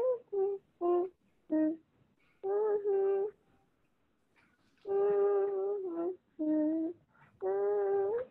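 A girl humming a tune in short held notes, in several phrases with pauses between them and a longer pause in the middle.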